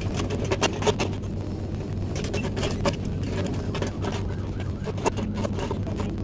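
Mini excavator engine running steadily, with scattered sharp knocks and clanks over it.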